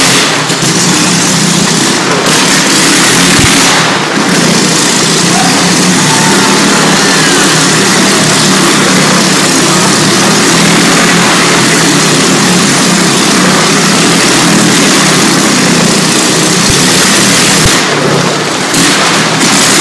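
Motorcycle engine noise, loud and steady, as the riders circle the wooden wall of death at speed.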